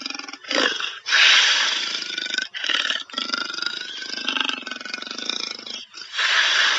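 A wild animal roaring: a series of harsh, rough roars with brief breaks between them.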